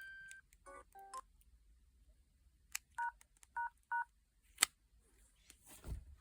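Samsung SGH-G600 mobile phone: the last note of a ringtone cuts off just in, then the phone's keypad gives short beeps, including three short two-tone keypad tones, as keys are pressed. Sharp key clicks come between them, one louder click shortly after the tones.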